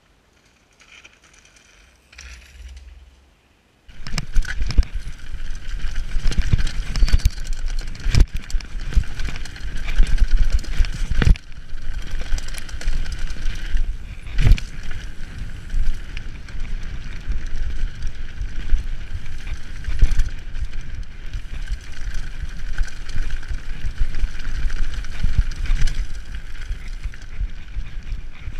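Mountain bike riding fast down a dirt forest trail, heard from the rider's camera: a continuous rushing noise with frequent sharp knocks and rattles as the bike goes over bumps. It starts abruptly about four seconds in, after a few seconds of faint sound.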